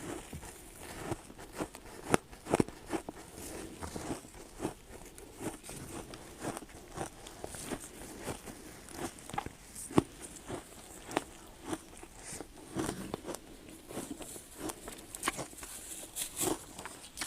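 Ice being bitten and crunched between the teeth: many sharp, irregular cracks and crunches, the loudest about two seconds in and again about ten seconds in.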